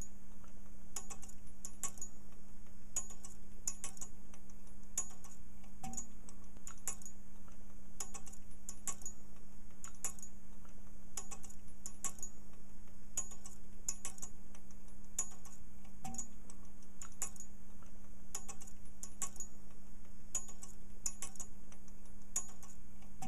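Clock ticking steadily, about two ticks a second, over a steady low hum.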